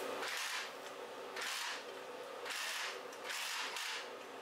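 Glass-cleaner spray hitting a red-hot steel billet in four hissing bursts of about half a second each, over the steady hum of the motor-driven twisting machine. The spray is cooling the hottest spots so that they twist more slowly and the twist comes out even.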